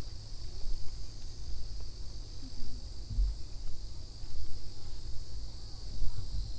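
Steady high-pitched chorus of insects singing, with an uneven low rumble underneath.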